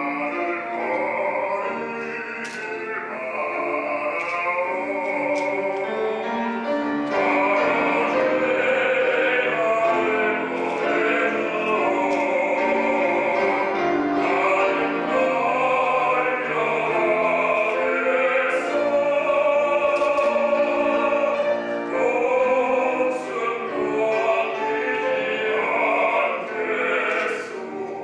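Two male voices, a baritone and a bass, singing a duet in classical art-song style. One voice sings alone at first and the second joins in, the two then holding long notes together.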